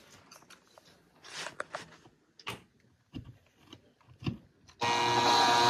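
A few light clicks and taps as a self-tapping zinc drywall anchor is handled and set against the wall on the driver bit. Then, about five seconds in, a cordless drill starts up and runs steadily, driving the anchor into the drywall.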